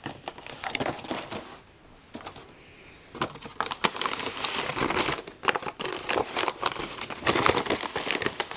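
A brown paper bag crumpling and rustling as a kitten burrows into it and paws at it. The rustling eases off briefly about two seconds in, then comes back busier and denser from about three seconds in.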